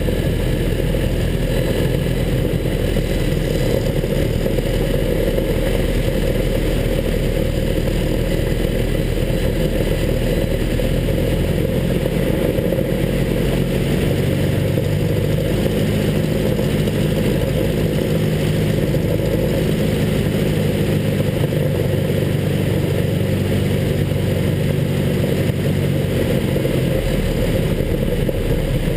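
Zlin Z-126's Walter Minor four-cylinder engine and propeller running steadily, heard from the cockpit as the plane comes in to land. The engine note changes about halfway through and again near the end.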